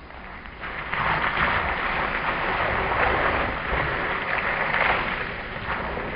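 Steady hiss of water spraying from a slip and slide's sprinkler jets, starting about half a second in, with splashing as a boy dives onto the wet plastic sheet and slides along it.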